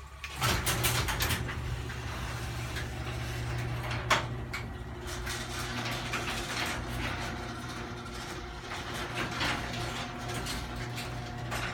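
LiftMaster 1/3-horsepower chain-drive garage door opener running as it closes the door: a steady motor hum with chain and door rattles. There is a sharp knock about four seconds in.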